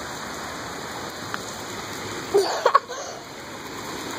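Steady rain falling, an even hiss. A brief, louder voice-like sound comes about two and a half seconds in.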